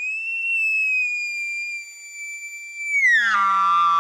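A hunter's mouth-blown imitation of a bull elk bugle, called through cupped hands: a high, steady whistle that drops about three seconds in to a lower, raspy note with a growl underneath.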